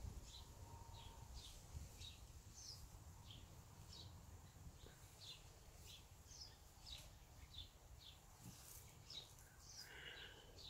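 Faint bird chirping: short, high chirps repeating about twice a second over a quiet low background hum, with a slightly longer call near the end.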